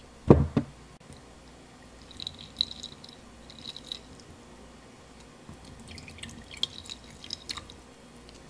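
Milk poured into a nonstick saucepan, splashing and trickling in two spells of a second or two each. Two short knocks just after the start.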